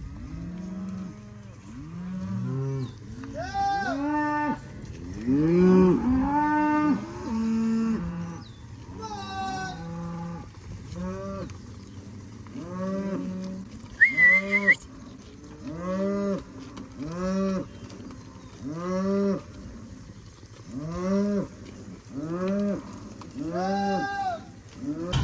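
Cattle mooing, one call after another about every second, several cows overlapping at first. There is one short, high squeal about halfway through.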